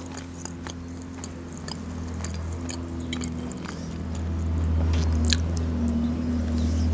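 A tractor engine's low rumble outside, growing steadily louder from about halfway through as it approaches. Over it, close-up chewing with sharp clicks of a fork on a plate.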